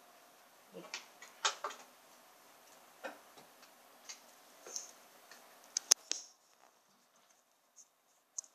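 Faint, scattered small clicks and taps from nail-painting tools and polish bottles being handled on a wooden table, the sharpest a crisp click a little before six seconds in, after which the faint background hum drops away.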